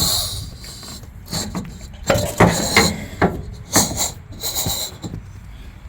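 Irregular knocks, clinks and scrapes of metal suspension brackets and hand tools being handled, with several sharp hits spread through.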